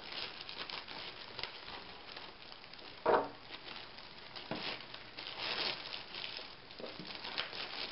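Clear plastic bag crinkling and rustling as it is handled and pulled off the air fryer, with a single louder click about three seconds in.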